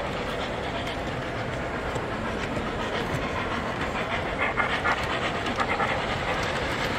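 Model trains running on the show layouts, wheels clicking over the rail joints, over a steady din in the hall.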